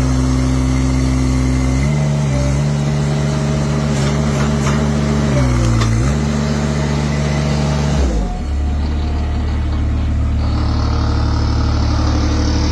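Mini skid steer loader's engine running steadily under load. Its pitch sags and recovers briefly about five to six seconds in, then falls steeply about eight seconds in, and it settles into a lower, steady run.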